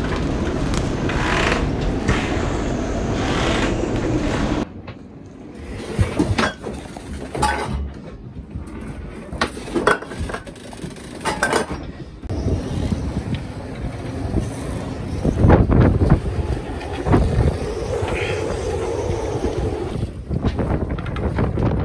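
Wind gusting and buffeting the microphone on and around a moored boat. A few seconds in it gives way to a quieter stretch of short clinks and clatter of items in a small galley, and after about twelve seconds the wind noise returns.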